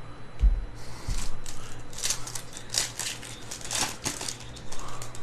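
Foil trading-card pack wrapper being torn open and crinkled by hand, a run of irregular crackling lasting about three seconds, after a soft thud about half a second in.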